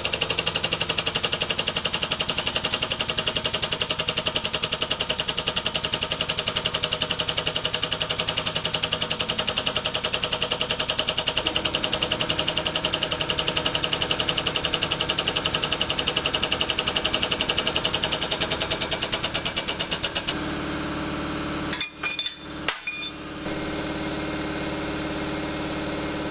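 Air-over-hydraulic jack of a 20-ton shop press pumping, a loud rapid chatter as it drives the press brake punch down to bend steel bar. About 20 seconds in the chatter stops suddenly, leaving a steadier hum with a couple of clicks.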